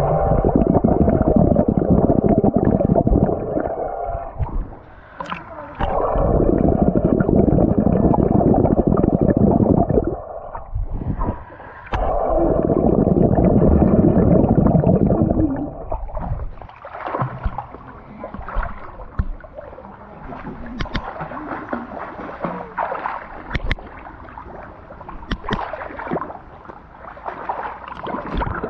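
Swimming-pool water heard through an action camera held underwater: a muffled, dull rumble of moving water in three long loud stretches in the first half, giving way to quieter, choppier splashing and lapping as the camera nears the surface.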